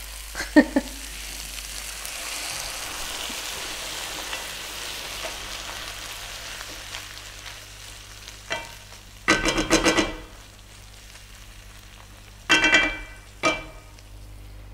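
Githeri of maize, beans, potatoes and meat sizzling in a hot pan while a wooden spoon stirs it; the hiss fades after about eight seconds. A few short ringing clinks and knocks follow, about nine seconds in and again near the end.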